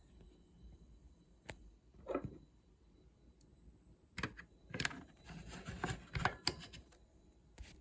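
Irregular clicks, taps and clattering, most of them in a cluster past the middle, over a faint steady high-pitched whine, the kind of whine a switching power adapter for a LiitoKala Lii-600 battery charger gives off when powered.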